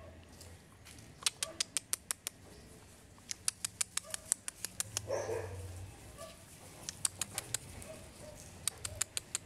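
A pit bull puppy's claws clicking on wooden planks as it walks about, in four quick runs of sharp ticks.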